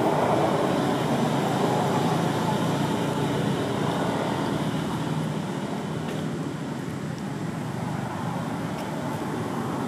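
A motor vehicle's engine running steadily, growing slowly quieter over the first half.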